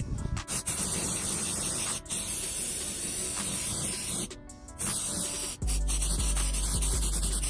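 Aerosol can of Simoniz Back to Black plastic trim restorer spraying in long hisses, with a short break about four seconds in. Background music with a bass beat comes in near the end.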